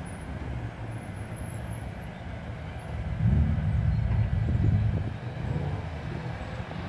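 Several BMW M3 race cars' engines running on the starting grid, with the revs blipped and louder for a couple of seconds about halfway through.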